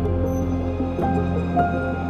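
Slow background music: held notes over a steady low bass drone, with new notes coming in about once a second.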